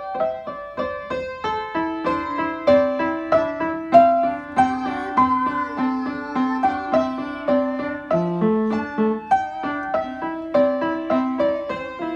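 Upright piano being played: a quick melody of struck notes over a steady, repeating lower accompaniment.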